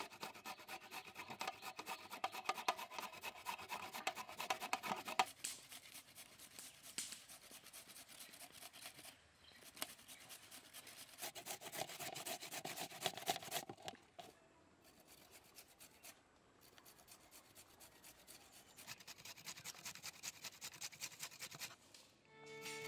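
Carrots being grated by hand on a flat metal grater resting on a steel tray: a steady run of quick scraping strokes, broken by a few short pauses.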